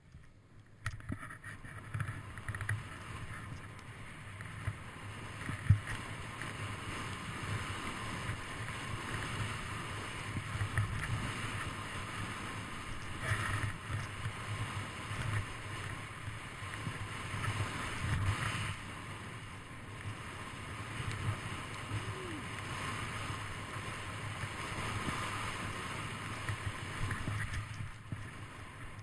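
Snowboard riding down through snow: a continuous rushing hiss of the board sliding and turning, with a low rumble from the body-mounted camera. It starts about a second in, and there is one sharp knock a few seconds later.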